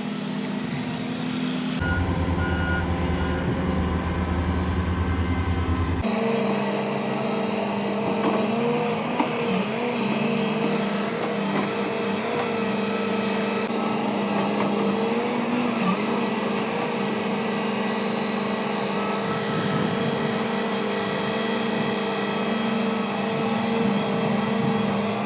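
Large Hitachi Zaxis excavator's diesel engine running steadily, with slight rises and falls in pitch as it works. A deeper rumble comes in abruptly about two seconds in and cuts off about six seconds in.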